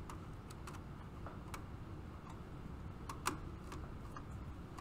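Scattered, irregular light clicks and ticks as a wire is handled and connected to the terminals of a PLC trainer panel.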